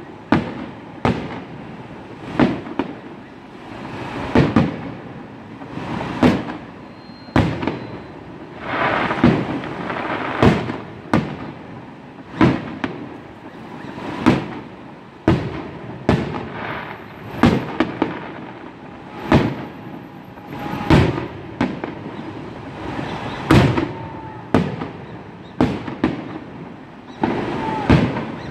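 Aerial firework shells bursting one after another, a sharp bang every second or two, each trailing off in an echo, with stretches of crackling in between.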